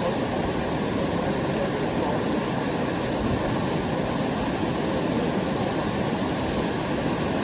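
Steady rush of a waterfall, falling water making an even noise.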